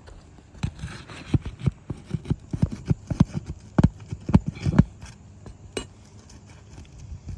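Irregular knocks, taps and scrapes of tools against an asphalt shingle roof as nails are pulled and a damaged shingle is worked loose, in a dense run over about four seconds before tapering off.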